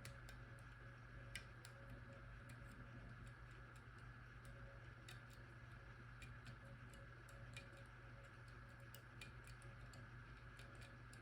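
Faint, irregular small clicks of a disc-detainer pick working the rotating discs inside an Abloy Classic padlock, a tick every second or so over a steady low hum.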